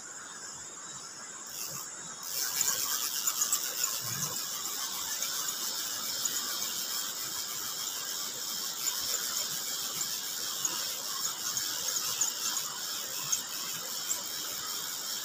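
Shrill insect chorus, cicadas, sets in abruptly about two seconds in over a fainter steady high insect trill, then keeps going as a loud, fast-pulsing buzz.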